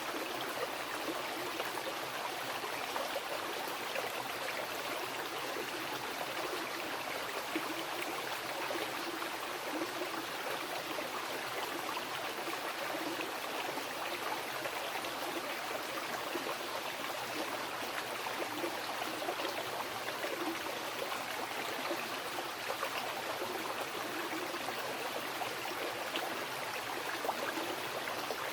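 Mountain river flowing over rocks: a steady rush of water, with burbling and splashing, that holds even throughout.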